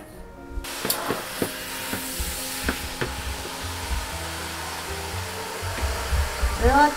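Water spraying from a handheld shower head into a plastic basin of plush toys: a steady hiss with a few light knocks and splashes, over background music. Near the end comes a short wavering voice-like call.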